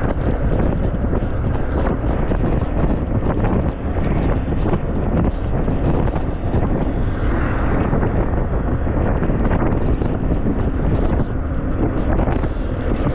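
Steady wind rushing over the microphone of a moving motorbike, with the engine running underneath.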